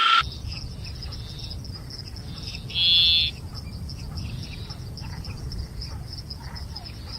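A frog gives one short, loud buzzy call about three seconds in, over a steady high insect trill and faint scattered chirps, with a low rumble of background noise underneath.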